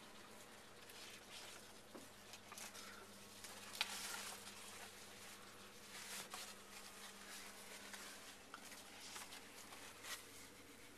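Faint, irregular clicks and rustles over a steady low hum.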